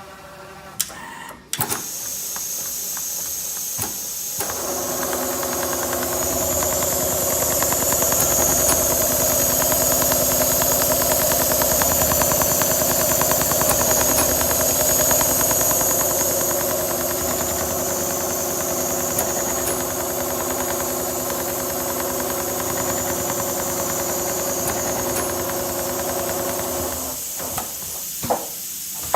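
Industrial leather sewing machine running at speed, its needle stitching in a rapid, steady rhythm over a motor whine. It starts with a few clicks about a second in, and a couple of knocks come near the end as it stops.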